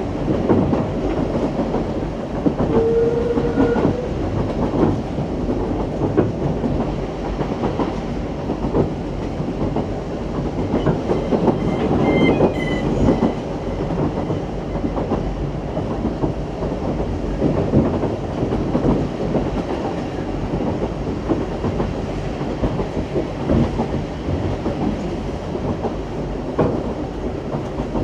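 Vintage steam train of the Isle of Man Steam Railway under way, its wooden-bodied coaches rattling and the wheels clicking steadily over the rail joints. A short tone sounds about three seconds in, and a faint high squeal near the middle.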